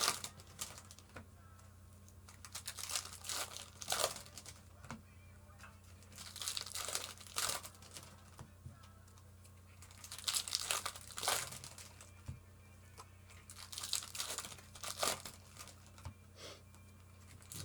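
Foil trading-card pack wrappers crinkling and tearing open in about five separate bouts of a second or two each, over a faint steady low hum.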